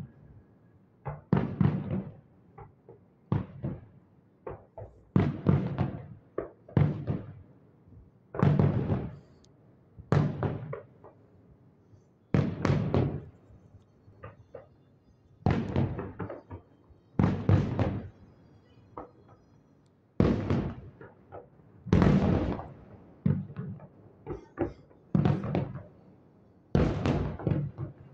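Distant fireworks show: a long irregular string of firework shell bursts, sharp booms each with a short rumbling echo, roughly one a second with some coming in quick pairs.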